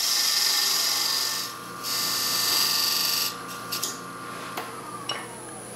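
Turning tool cutting a spinning wooden spigot on a wood lathe: two stretches of scraping cutting noise with a short break between, for about the first three seconds. The tool then comes off the work, leaving the lathe's steady hum with a few light clicks, and a falling tone near the end as the lathe slows down.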